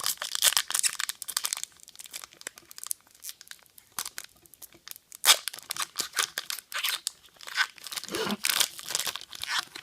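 Foil wrapper of a Pokémon trading card booster pack being torn open and crinkled, in irregular bursts of crackling, busiest in the first second and a half, with a sharp crackle about five seconds in and more near the end.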